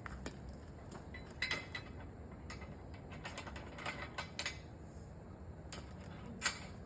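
Scattered metal clicks and clinks as a tractor's three-point hitch top link is connected to a Category 1 quick hitch, with the sharpest clink near the end.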